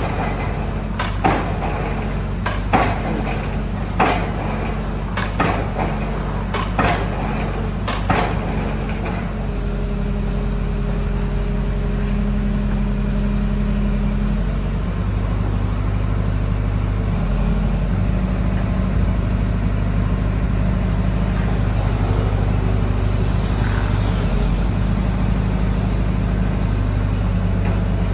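Excavator's diesel engine running steadily, with a series of sharp metallic knocks about a second and a half apart in the first third, then the engine note shifting in pitch a couple of times as it works.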